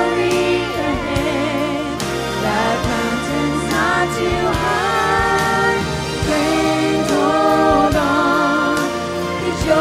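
A family (a man, a woman and young children) singing a gospel song together into handheld microphones, over instrumental accompaniment with a steady beat.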